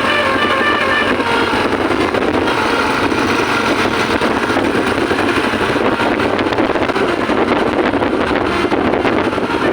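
Bus running steadily, a constant engine and wind noise. The last notes of a multi-tone telolet horn die away in the first second or so.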